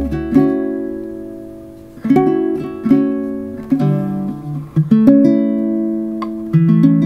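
Background music: plucked acoustic guitar chords, each ringing and fading before the next is struck.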